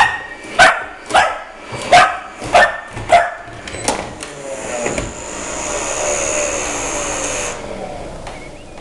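Boxer puppy barking about six times in quick succession, then an upright vacuum cleaner's motor running with a high whine that cuts off suddenly when the vacuum is switched off, leaving the motor winding down.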